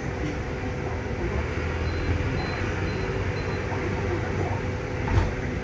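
Inside a city bus standing still: engine idling with a steady low cabin hum, and a short thump about five seconds in.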